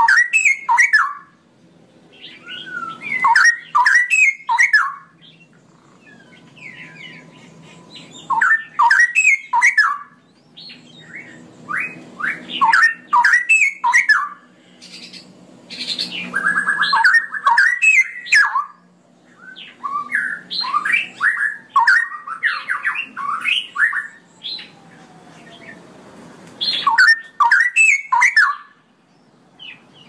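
Straw-headed bulbul singing its rich, bubbling warble. Phrases of quick gliding notes last a second to a few seconds and repeat every few seconds, with short pauses between them.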